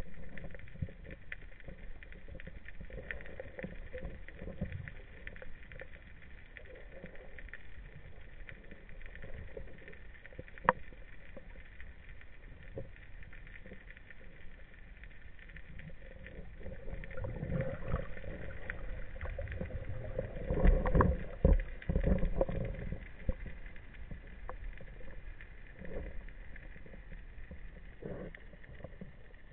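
Underwater sound picked up by a camera in a waterproof housing on a speargun: muffled water noise with scattered faint clicks and one sharp click. Louder low thumps and rumbles come about 20 to 22 seconds in, from the diver moving in the water.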